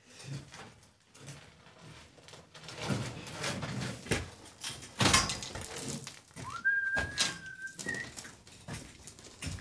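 Aluminium scaffold tower being handled and moved: irregular metal knocks and rattles, the loudest about five seconds in. Around seven seconds in, a high whistling tone rises and then holds for about a second.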